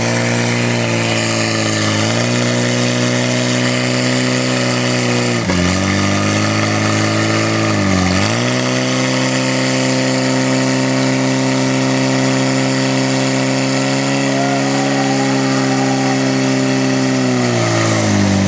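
Portable fire pump's engine running hard while pumping water out to the hose lines. Its pitch dips briefly three times in the first half, holds steady, then falls near the end.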